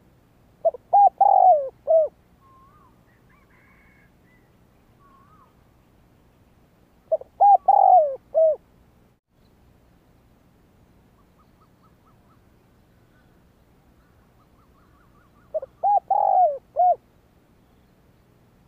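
Spotted dove cooing: three phrases of several short notes each, about seven to eight seconds apart. Faint chirps of other birds sound between the phrases.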